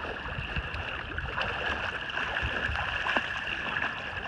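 Retriever swimming through shallow marsh water, its paddling making a steady sloshing and gurgling of water.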